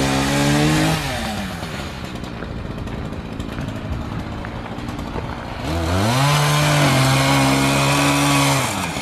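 Chainsaw cutting up a fallen Osage orange tree. It runs at full throttle, drops back to idle about a second in, then revs up again near six seconds and holds high for about three seconds before falling off at the end.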